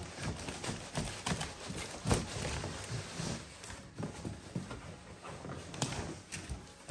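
Irregular rustling and knocking as wrapped play yard parts are handled and lifted out of a large cardboard box, with a louder knock about two seconds in.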